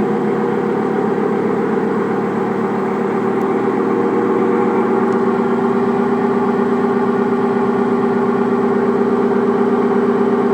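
Samsung washing machine's empty drum spinning on a spin-only cycle, with a steady droning noise that the owner puts down to a bad bearing. The noise grows a little louder about four seconds in.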